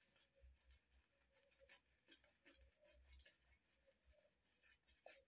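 Near silence: room tone with a few faint scattered soft rustles and ticks.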